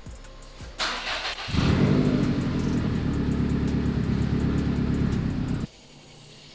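Subaru WRX STI's turbocharged 2.5-litre flat-four engine starting up and then running steadily and loudly. The sound cuts off suddenly about a second before the end.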